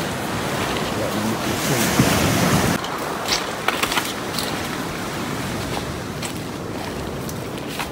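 Steady rush of flowing river water, with a louder swell of noise about two seconds in that cuts off suddenly, then a few sharp clicks.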